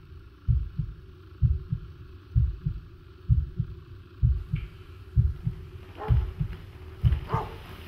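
Heartbeat: slow, steady double thumps, about one beat a second, over a faint steady hum. A few faint, brief higher sounds come in about six seconds in.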